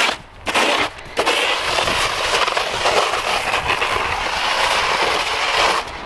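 Snow shovel pushed along a concrete sidewalk: two short scrapes, then about a second in one long, steady scrape of the blade.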